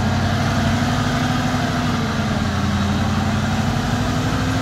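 A UD dump truck's diesel engine running steadily while its hydraulic hoist tips up the loaded bed of soil, the pitch drifting slightly up near the end.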